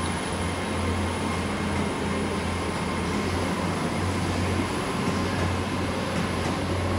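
Two coupled Class 802 IET bi-mode units pulling out on their underfloor diesel engines: a steady low engine drone with a faint high whine that rises slightly.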